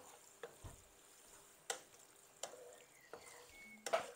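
Wooden spatula stirring chicken liver in a non-stick frying pan: soft scattered scrapes and taps against the pan, about half a dozen, with a louder knock near the end.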